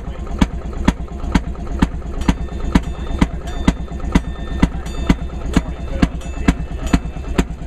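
Engine of a two-man railroad inspection car (speeder) idling: a steady low rumble with a sharp, regular click about twice a second.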